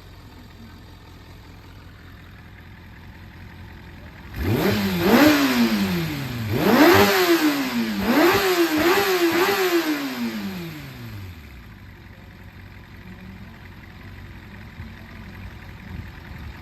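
Kawasaki ZRX400 inline-four motorcycle engine idling, then revved: two longer revs followed by three quick throttle blips, each rising and falling, before it settles back to idle. It runs cleanly with no abnormal noise, which the seller takes for an engine in top condition.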